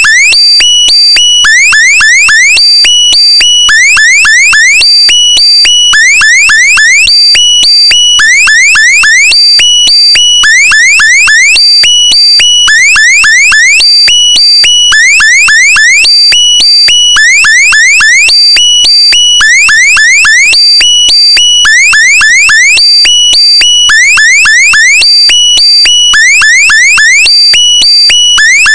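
Loud electronic alarm sound looping without change. About every one and a half seconds there is a quick run of rising chirps, then a high-pitched steady beep.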